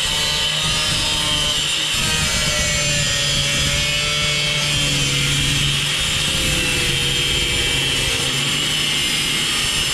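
Angle grinder with a cut-off wheel cutting through a car's sheet-steel radiator support: a steady, high-pitched whine with the grind of the wheel in the metal.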